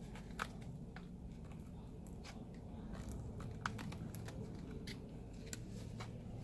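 Faint, irregular small clicks and crackles of a tool working at the iPad Air's cracked touch-screen glass, over a low steady hum.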